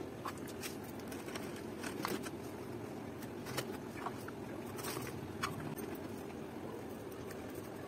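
Scattered light clicks and scrapes from a small metal scoop and metal rods against a plastic mould as wet cement is packed in by hand, over a steady low background hum.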